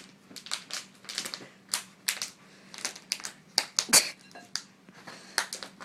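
A puppy playing tug-of-war, making quick, irregular clicks and scratchy rustles, with one sharper click about four seconds in.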